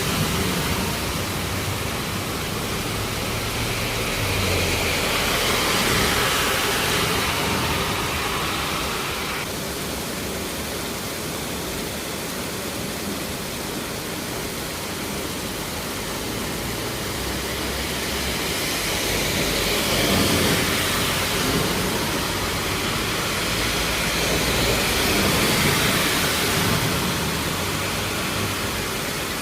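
Heavy downpour: a steady, loud hiss of torrential rain, swelling louder a few times.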